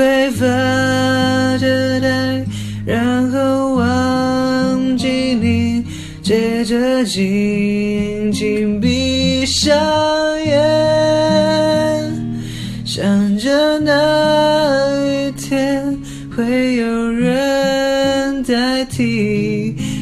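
A young man singing a slow Mandarin ballad to his own plucked acoustic guitar, the voice carrying the melody in long phrases.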